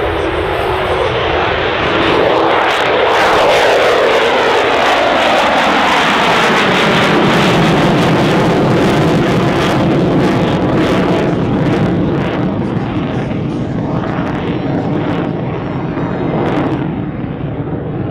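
Lockheed U-2's single General Electric F118 turbofan at take-off power as the aircraft lifts off and climbs overhead. Its loud, steady jet noise has a sweeping, swishing quality that shifts in pitch as it passes. It is loudest a few seconds in and eases slightly near the end.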